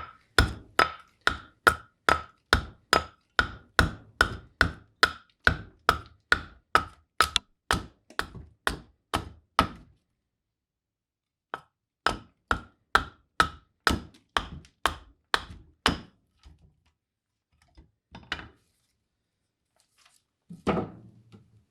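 Hatchet chopping green black walnut across the grain, quick even strikes about two to three a second. The chopping stops for a moment about halfway, picks up again, then trails off into a few faint knocks near the end.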